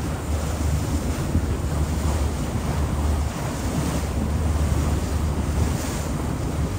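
Steady low rumble of a Seine river cruise boat under way, with wind buffeting the microphone and a rushing hiss of air and water.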